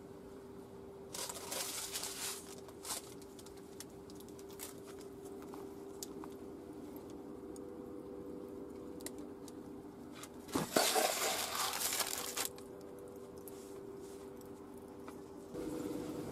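Baking paper crinkling in two bursts, a second or two each, as the flatbread lying on it is handled, with a few light ticks in between over a faint steady hum.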